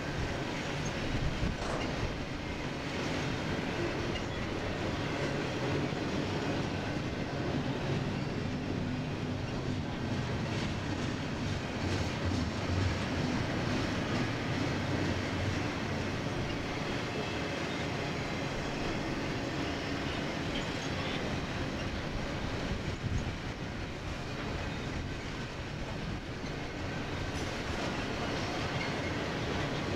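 Double-stack intermodal container train rolling past: the steady rumble of the loaded well cars on the rails, with occasional wheel clicks.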